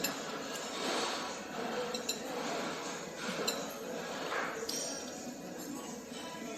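Eating utensils clinking sharply against a dish a few times while eating a bowl of soup.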